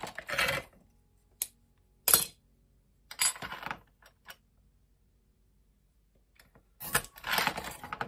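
A hand-held glass cutter scoring sheet glass along a straight edge: a few short, scratchy hisses, with a sharp clink of glass about two seconds in.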